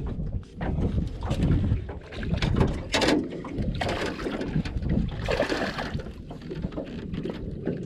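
Wind buffeting the microphone, with scattered knocks and clatters of gear in a small aluminium boat, the loudest a sharp knock about three seconds in.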